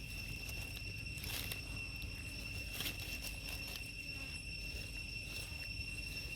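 Outdoor ambience with a steady, high-pitched insect drone, and a couple of short rustles about one and three seconds in.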